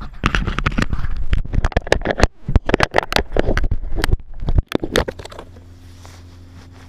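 Splashing and sharp knocks as an action camera is dipped into shallow sea water and moved about. About five seconds in the sound drops to a steady low hum heard with the camera underwater.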